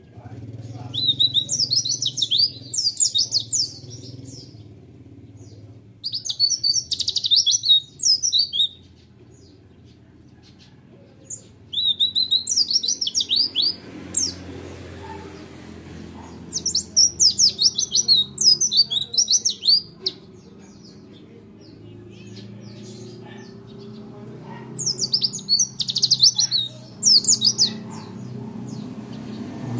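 Caged white-eye (pleci) singing a rapid, high twittering song in five bouts of two to three seconds each, with pauses between them, in the fast 'roll tembak' style.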